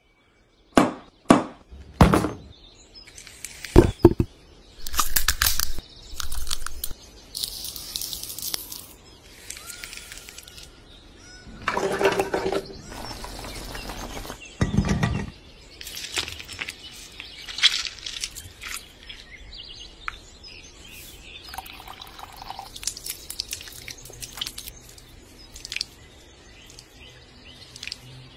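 Food-preparation sounds: a few sharp knocks and clicks, then stretches of hissing and pouring, with scattered small clatters.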